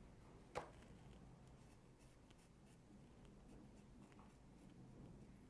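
Faint, short scratchy strokes of a handheld dermaplaning blade scraping fine hair off the skin of the forehead, with one sharp click about half a second in.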